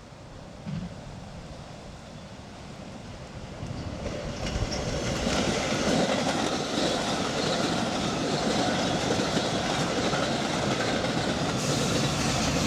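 Inbound Metra commuter train passing at speed, its wheels running over the rails. It grows louder over the first five or six seconds, stays loud, then cuts off suddenly.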